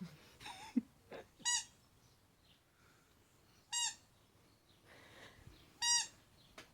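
Squeaky burger-shaped dog toy squeezed three times, each a short, high squeak about two seconds apart.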